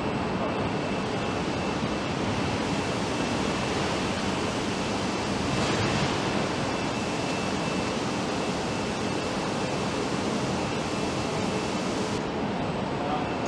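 Steady hiss of factory-hall background noise, with a faint thin high tone running through it.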